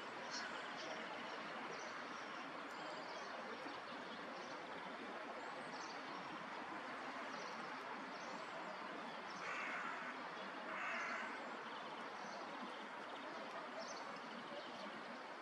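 Outdoor park ambience: a steady wash of distant city noise, with small birds chirping on and off throughout. Two louder, short harsh bird calls come close together about ten seconds in.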